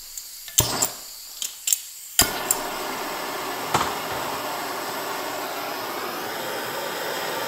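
Hand-held propane torch on a 1 lb cylinder being lit: gas hissing from the opened valve, a few sharp clicks, then it catches about two seconds in and burns with a steady rushing hiss.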